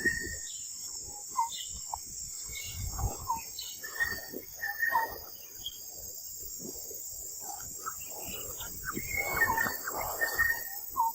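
Steady high drone of insects, with short chirping calls and scattered rustles and knocks over it.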